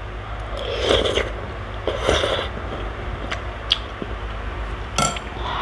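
Close-up eating sounds: two slurps of thin misua noodles and broth off a spoon, then chewing, with a few light clicks of a metal spoon against a glass bowl.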